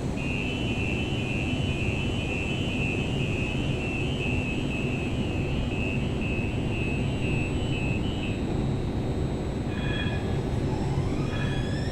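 San Francisco Muni light-rail train at an underground platform: a steady low rumble with a quick two-pitch warning beep alternating for about eight seconds, then near the end a rising electric motor whine as the train starts to pull away.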